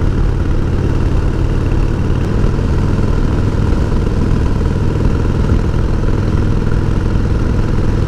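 1988 Harley-Davidson Heritage Softail's 1340 cc Evolution V-twin running steadily as the sidecar outfit is ridden, with a slight change in the engine note about two seconds in.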